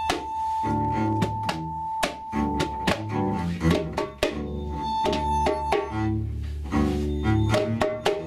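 Acoustic free improvisation: a double bass playing low sustained notes while a vibraphone struck with mallets lets its notes ring, over many sharp clicks and knocks of struck percussion.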